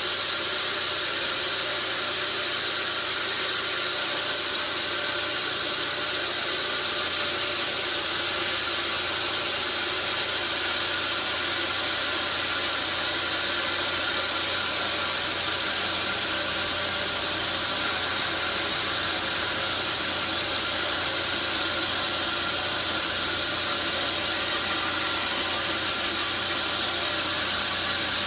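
Sawmill machinery running steadily: a constant mechanical whine with a hiss over it that holds the same level throughout.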